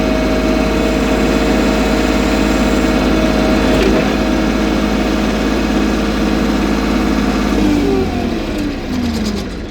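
F250 starter motor spinning with a steady whine, then cut off about eight seconds in and winding down with falling pitch; the starter is working.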